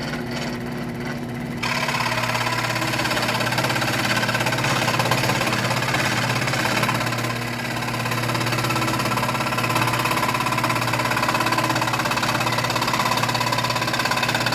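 Wen scroll saw running with its blade cutting through wood: a steady motor hum and blade chatter that grows louder and fuller about a second and a half in as the cut bites. The blade, freshly re-tensioned, is cutting smoothly without squealing.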